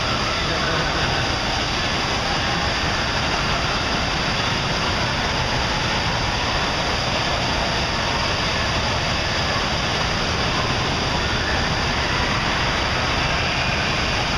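Hot tub jets and bubbling water: a steady low rushing noise that holds at one level throughout.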